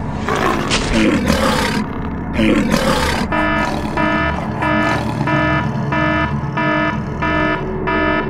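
Electronic sci-fi sound effects: a steady synth drone, with two loud rough noise bursts, each about a second long, in the first three seconds. Then a pulsing electronic tone beeps on and off about twice a second.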